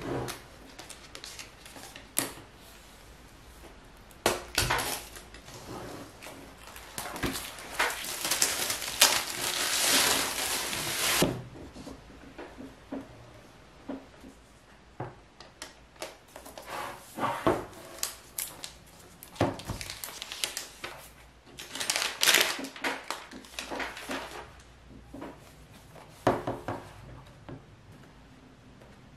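Unboxing a MacBook Air: handling of its cardboard box, with knocks on a wooden table. About eight seconds in come a few seconds of tearing and crinkling as the wrapping is pulled off. Later the lid slides off and the laptop is lifted out and set down.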